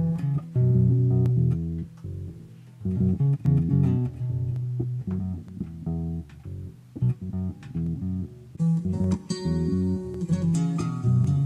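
Harley Benton PB Shorty short-scale electric bass with a passive precision pickup, played through a Zoom G1Four multi-effects: a continuous run of plucked notes, often overlapping, with a brighter, higher-pitched stretch near the end.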